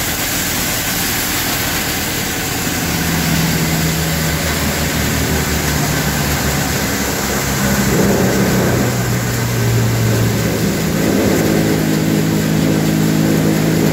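Vishwakarma combine crop thresher running at work, a loud steady machine drone with a constant rushing hiss of straw and chaff passing through. Its low drone changes pitch a few times, about three seconds in, midway and near the end.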